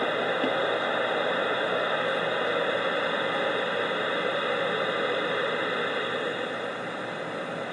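Radio receiver hiss and static on an open channel, a steady rushing noise while listening for a reply, easing slightly near the end.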